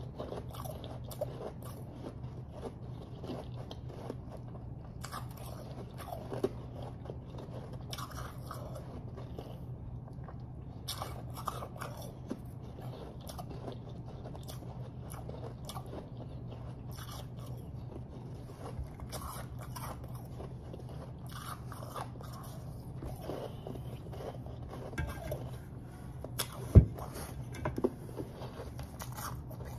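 Close-miked chewing and crunching of refrozen powdery snow ice: a continuous crisp crackle of the ice breaking between the teeth over a steady low hum. Two sharp knocks stand out near the end.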